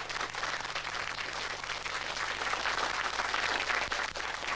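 Studio audience applauding: many hands clapping at once.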